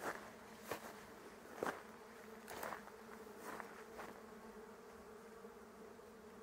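A swarm of bees buzzing in a blooming ironwood tree: a faint, steady hum, with a few soft clicks in the first few seconds.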